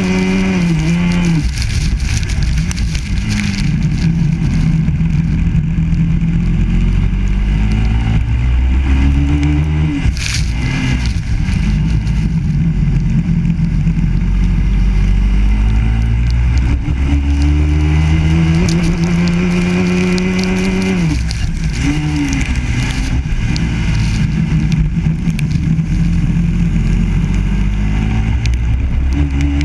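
Biland SA250 kart's four-stroke engine, heard close up from onboard, revving hard. Its pitch climbs steadily along each straight and drops sharply each time the throttle is lifted, about a second in, near ten seconds, near twenty-one seconds and at the very end.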